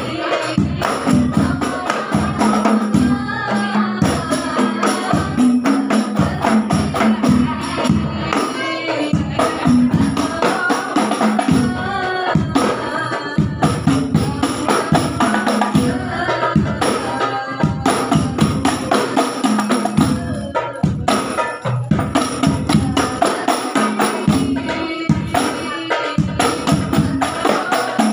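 Islamic sholawat devotional music: voices singing to a steady, dense rhythm of hand-struck rebana frame drums and larger wooden hadroh drums.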